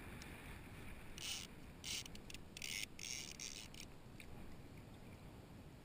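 Fishing reel's drag giving out line in several short raspy bursts from about a second in to about three seconds, a hooked stingray pulling against the bent rod. Faint water and wind hiss underneath.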